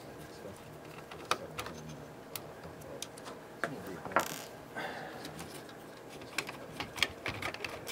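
Sparse small clicks and taps of a screwdriver and of the metal and plastic parts of a cassette deck mechanism being handled while its Torx screws are undone and it is worked loose, with a louder short scrape about four seconds in.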